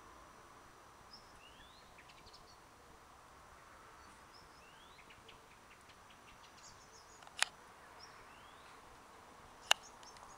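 Faint garden ambience with a bird calling a short rising chirp three times, a few seconds apart, among scattered faint ticks. Two sharp clicks, the loudest sounds here, come about seven and a half seconds in and near the end.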